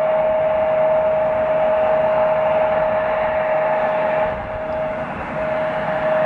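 Embraer E175 airliner's twin turbofan engines whining at low taxi power: one steady high whine over a constant rushing hiss, easing off slightly a little after four seconds in.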